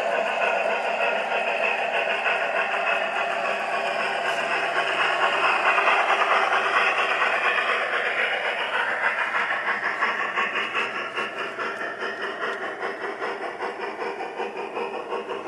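G-scale model steam locomotive running on garden-railroad track. It grows louder as it passes close by about halfway through, then fades as it draws away into a tunnel, with a regular pulsing of about three beats a second.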